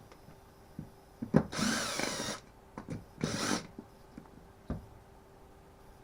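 Power screwdriver running in two short bursts, backing out the two screws that hold a Stihl FS36 strimmer's ignition coil. Sharp clicks come just before the first burst, and a single knock comes after the second.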